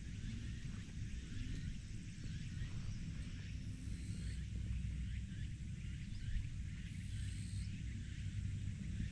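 Low rumble of wind on the microphone throughout, with many short, high chirping calls of wild birds over it.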